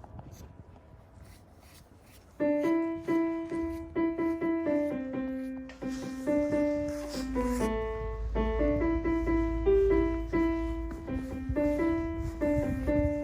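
Background piano music starting about two seconds in, a light tune of quickly repeated notes.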